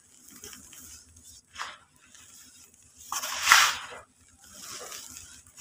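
Powdered yellow brick dust squeezed in gloved hands and let fall in handfuls into a metal tub, each pour a soft hiss; the loudest pour comes about three seconds in.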